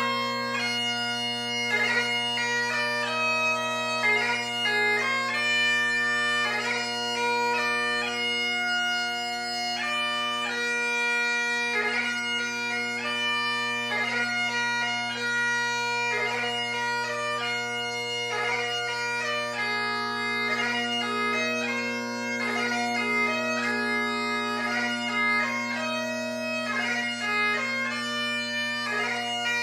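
Great Highland bagpipe playing a piobaireachd: the drones hold two steady low tones while the chanter plays held melody notes broken by quick grace-note embellishments.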